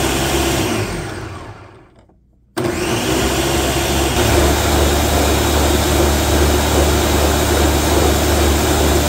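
Countertop blender puréeing soup: the motor winds down to a stop about two seconds in, then starts again and runs steadily, getting a little louder about four seconds in.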